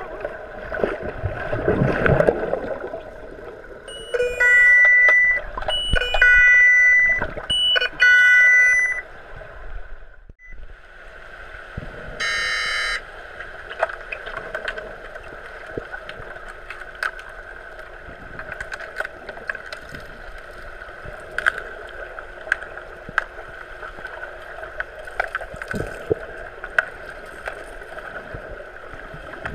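Underwater hockey game heard from an underwater camera housing: a steady muffled hum of pool water with scattered sharp clicks, and a rush of water close to the microphone about two seconds in. An underwater referee's sounder beeps loudly five times from about four to nine seconds in, then once more, shorter, around twelve seconds in.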